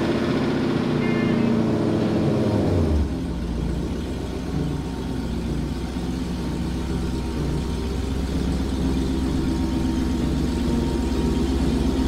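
Dodge Challenger SRT Hellcat Redeye's supercharged 6.2-litre HEMI V8 just after starting: the revs fall from the start-up flare over the first three seconds, then it settles into a steady, throbbing idle.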